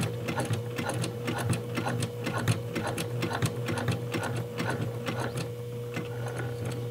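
Straight-stitch home sewing machine running steadily while stitching through layers of denim: a steady motor hum with rapid, even needle clicks.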